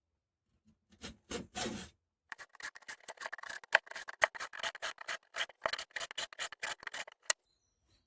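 Chainsaw chain being sharpened with a 2-in-1 file guide, a round file and a flat file working together: a couple of light knocks, then about five seconds of quick, rasping file strokes across the cutters and depth gauges.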